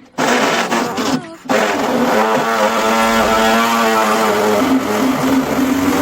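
Background rock music with a held, wavering note over a dense guitar-heavy backing.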